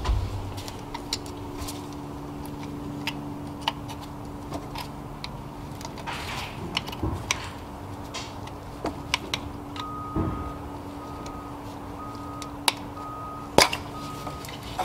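Upper radiator hose with a plastic end fitting being worked and pulled out of the thermostat housing: scattered small clicks and knocks of plastic and rubber, the sharpest near the end. Behind it runs a steady low hum, and from about ten seconds in a short electronic beep repeats about five times.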